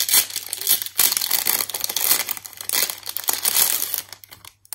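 Clear plastic packaging crinkling as a round metal tin is worked out of its bag, dense rustling for about four seconds that then dies away to a few light clicks.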